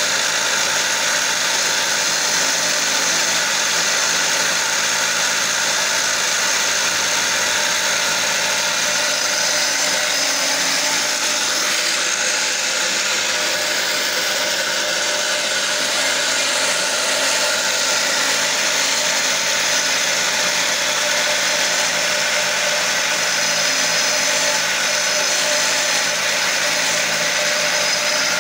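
Wood-turning lathe running steadily, its motor humming while a hand-held cutting tool scrapes and cuts grooves into the spinning wooden spindle.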